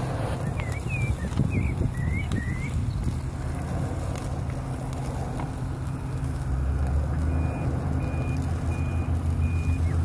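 Steady low rumble that grows heavier about six and a half seconds in, with a few short chirps in the first few seconds. From about seven seconds in, a vehicle's reversing alarm beeps at an even pace.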